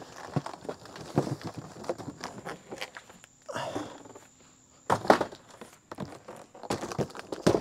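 A cardboard shipping box being handled: the lid slid off and the box lifted, tipped and set down, with scraping, rustling and a run of sharp knocks and thumps, the loudest about five seconds in and near the end.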